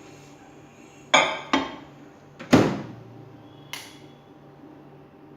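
Microwave-safe bowl knocking and clinking as it is handled and set into a microwave oven: four sharp knocks, the loudest about two and a half seconds in.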